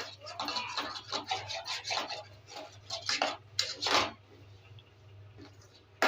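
Spoon scraping and stirring melting jaggery and grated ginger in a cooking pan. There are repeated short scraping strokes for about four seconds, then it goes quieter, and a sharp tap of utensil on pan comes at the very end.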